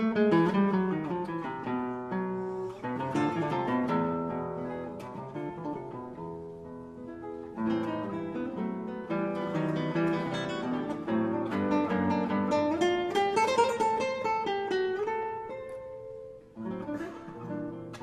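Background music of acoustic guitar, plucked and strummed, dipping briefly near the end.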